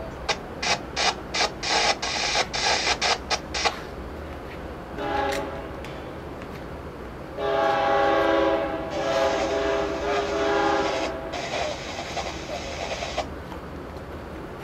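Diesel locomotive air horn of an approaching freight train, sounding a multi-note chord: a short blast about five seconds in, then a long blast of about four seconds. Before it, a quick run of about a dozen sharp bursts.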